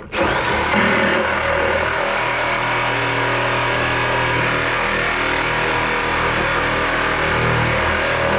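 Handheld power tool starting abruptly and running steadily under load, most likely cutting into metal, with small shifts in pitch as the load changes.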